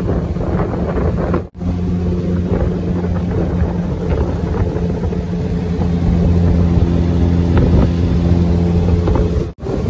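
Boat's outboard motor running steadily at a constant speed, with wind buffeting the microphone. The sound cuts out abruptly twice, about a second and a half in and near the end.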